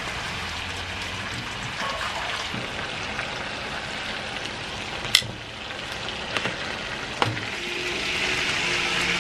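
Oil and meat juices sizzling steadily in a metal roasting tray on the hotplate of a wood-fired cook stove as butterflied chicken and lamb are seared before roasting. A few sharp clinks of metal tongs against the tray come in the second half.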